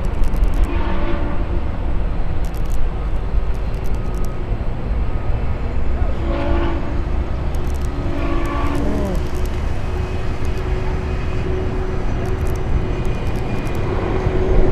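Distant steam whistle of Union Pacific 4-8-4 locomotive 844, a chord of steady tones. It blows about a second at the start, then two shorter blasts about six and eight and a half seconds in, over the low rumble of the departing train.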